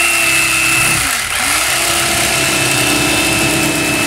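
Black & Decker corded electric fillet knife running as its reciprocating blades cut through a bass fillet. The motor winds down briefly about a second in, then picks back up and runs steadily.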